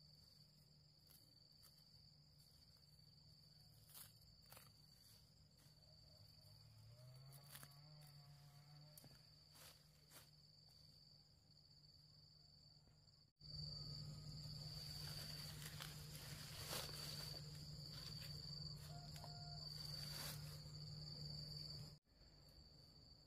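Faint insects trilling steadily at one high pitch, with a few soft clicks. Partway through, the background suddenly turns louder and noisier for several seconds, then drops back.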